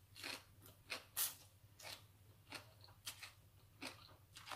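Eating sounds at the mouth: khanom jeen rice noodles being slurped in and papaya salad chewed, about ten short, faint wet slurps and smacks.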